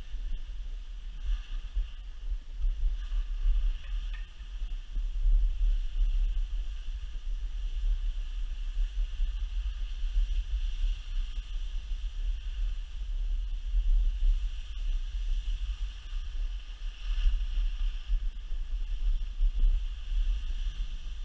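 Wind buffeting the action camera's microphone during a downhill ski run: a heavy low rumble that swells and falls unevenly, with a steady hiss from skis sliding over packed snow.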